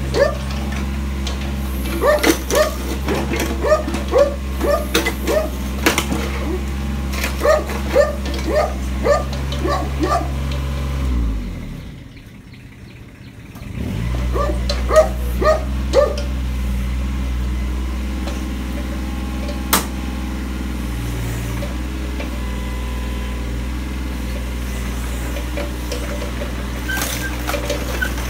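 Kubota KH-014 mini excavator's diesel engine running steadily. A dog yips repeatedly over the first ten seconds or so, and a few more times a little later. About eleven seconds in, the engine sound falls away for about three seconds, then comes back.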